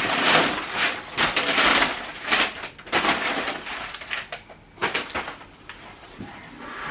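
Cardboard shipping box and its packing being torn open and rummaged through: irregular rustling, crinkling and scraping, busiest in the first few seconds and thinning out toward the end.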